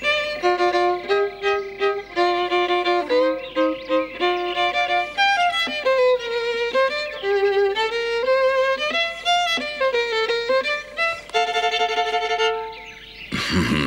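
A violin playing a slow melody, one bowed note after another with vibrato, ending on a long held note.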